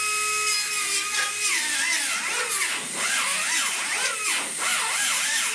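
Die grinder whining at full speed, then pressed against the car body's sheet steel to clean up a cut. From about a second and a half in, its pitch dips and recovers over and over as the tool loads and unloads.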